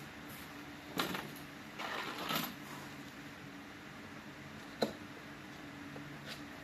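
Cardboard box handled on a plastic table: a knock about a second in as it is set down, then cardboard rustling and scraping, and later a single sharp tap as the box top is worked open.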